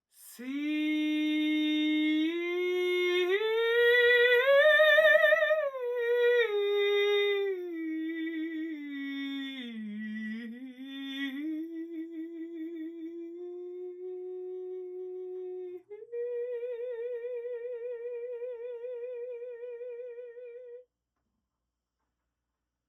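A woman's voice singing without words in slow, sustained notes that climb, fall to a low dip, then settle into one long note with a wide vibrato, which stops abruptly near the end.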